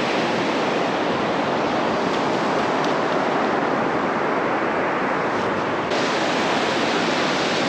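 Steady wash of surf breaking on a beach, a dense even hiss that turns suddenly brighter about six seconds in.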